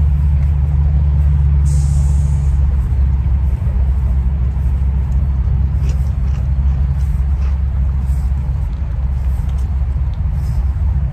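Wind buffeting a handheld phone's microphone: a steady low rumble, with a brief hiss about two seconds in.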